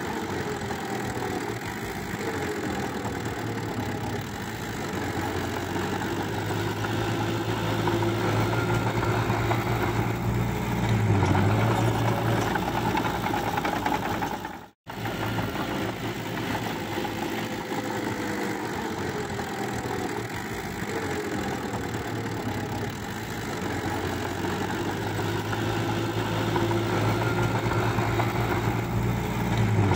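Diesel engine of a small crawler bulldozer running steadily as it pushes mud, growing louder for a few seconds at a time as it works. The sound cuts out for an instant about halfway through.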